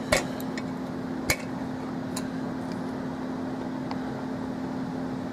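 Euro cylinder lock and metal tools being handled, giving a few sharp metallic clinks: two loud ones near the start and about a second in, fainter ones later, over a steady low hum.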